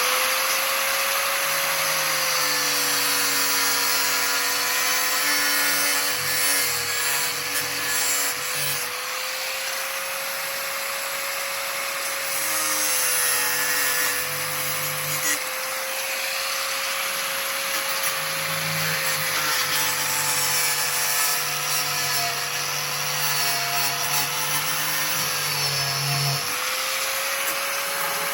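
Power tool cutting through a pipe: its motor runs at a steady pitch under a grinding, rubbing hiss. Three times a deeper sound joins in for several seconds, as the cut takes load, and then drops away.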